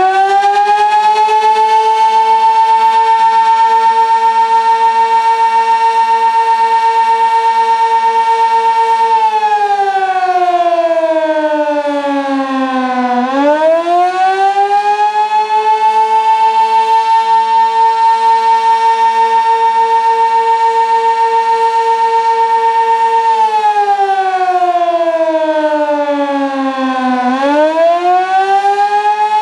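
Sentry 16V1T-B outdoor warning siren sounding the attack signal: it winds up to a steady high wail and holds it for about nine seconds, slides down over about four seconds, winds back up and holds again, then falls and rises once more near the end. Its loudness throbs regularly throughout.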